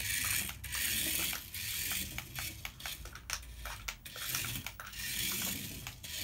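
Tiny 1/64-scale RC mini Jeep's electric motor and gears whirring in short surges, a high buzzing whir broken by rapid clicks as it is driven about.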